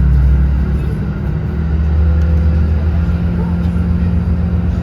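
Car driving along a road: a steady low engine rumble with road noise, the engine tone shifting slightly.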